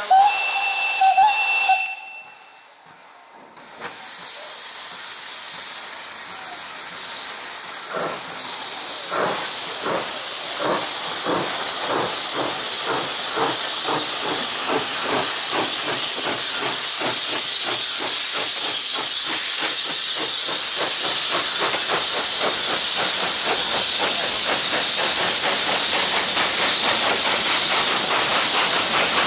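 Steam locomotive 414.096 'Heligón' gives one short whistle blast, then starts off with its train. Its exhaust chuffs start slow and come steadily faster as it picks up speed, over a continuous hiss of steam, and the sound grows louder as it approaches.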